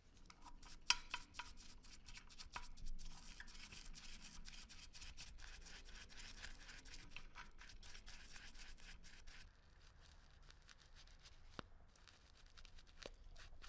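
Bristle brush scrubbing a small porcelain perfume bottle coated in foamy cleaning solution: a wet, scratchy rubbing with many small clicks, which turns quieter and sparser about two-thirds of the way in.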